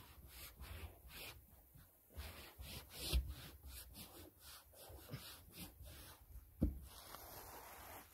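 Plastic backing film and a self-adhesive waterproofing membrane rustling, crackling and rubbing as the membrane is peeled and pressed down by hand. There are two dull knocks, about three seconds in and near the end.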